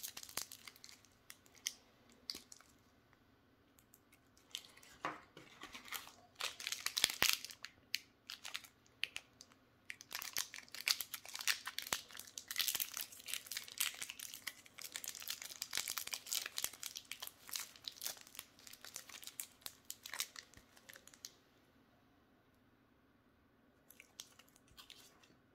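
Foil wrappers of mini Toblerone chocolates crinkling and crackling as they are unwrapped by hand, in uneven bursts that are busiest over the middle stretch, then die down to a few last crinkles near the end.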